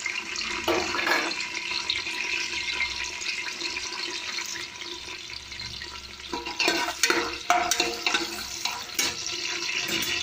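Green chillies, onions and whole spices sizzling in hot oil in a steel pressure cooker, a steady frying hiss. About two-thirds of the way through come a few sharp knocks and scrapes as they are stirred in the pan.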